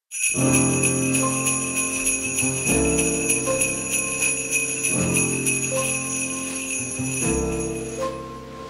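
Instrumental Christmas music with sleigh bells shaken in a steady rhythm over sustained chords that change every couple of seconds. The bells stop shortly before the end.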